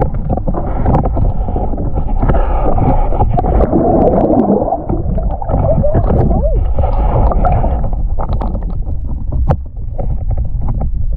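Water sloshing and gurgling as heard through a camera held underwater: a steady low rumble, with bubbly splashing and scattered clicks and knocks, most of them in the second half.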